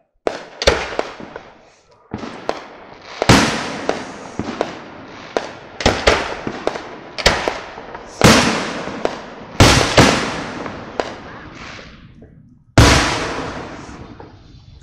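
Aerial fireworks shells bursting in quick succession: a dozen or so sharp booms, each trailing off in a long echo. The heaviest come about three, eight, nine and a half, and thirteen seconds in.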